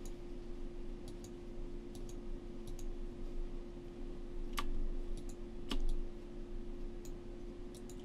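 Computer mouse clicking now and then, several clicks in quick pairs, over a steady electrical hum.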